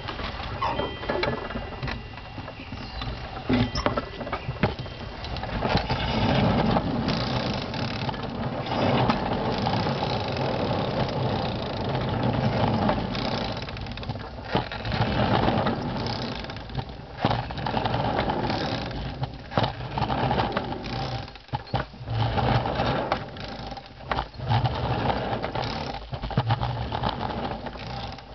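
Homebuilt 7½-inch-gauge hand car running along the track: steel wheels rolling on the rails, a steady rumble with many clicks and knocks from the wheels and the car's mechanism.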